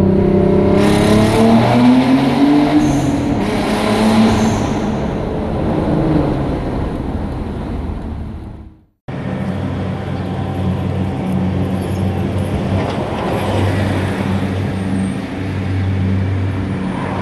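2018 Abarth 595 Turismo's 1.4-litre turbocharged four-cylinder through its stock exhaust, driving through a tunnel with its pitch rising as it accelerates. The sound fades out about eight and a half seconds in, then the engine runs at the tailpipes with a steady low note.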